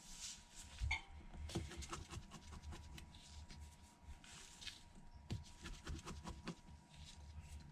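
Faint scattered clicks and light scraping of a small tri-point screwdriver and precision tools working tiny screws out of a phone's internal bracket.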